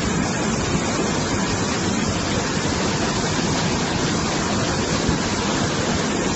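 Muddy floodwater surging down a swollen river at a waterfall: a steady, loud rush of churning water.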